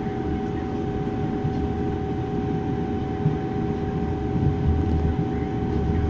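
A passenger train running at speed, heard from inside the carriage: a steady low rumble of the wheels on the track under a constant droning hum, with a few light thumps in the second half.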